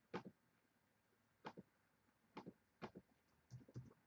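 About six faint, sharp computer mouse clicks, irregularly spaced, some coming as quick press-and-release pairs.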